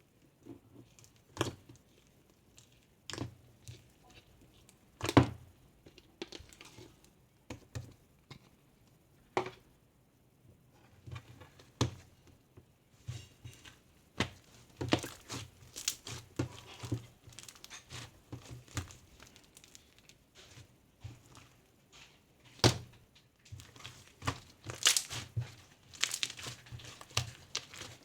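Irregular knocks, taps and crinkling handling noises, scattered at first and coming thicker in the second half, with one loud knock about five seconds in.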